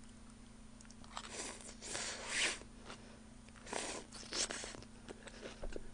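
Close-miked chewing and crunching of a mouthful of shredded raw onion, in soft crunchy bursts every second or so.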